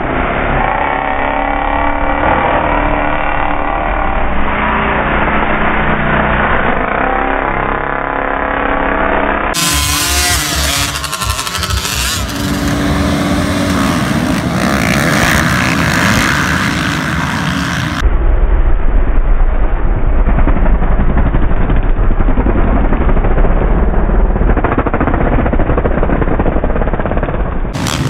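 Motocross dirt-bike engines at race starts. Small bikes rev and pull away, then a full line of motocross bikes revs at the starting gate with rising and falling revs and launches together. The engines run loud throughout.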